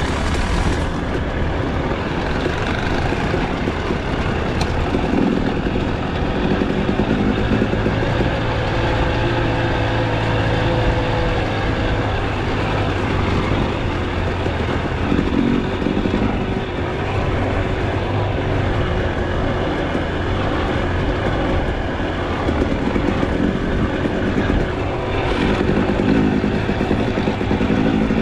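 KTM enduro dirt bike engine running close up while being ridden, the throttle rising and falling every few seconds.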